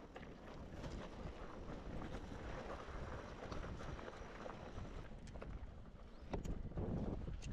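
Wind buffeting the microphone over a rough rumble, with scattered clicks and knocks that grow louder near the end.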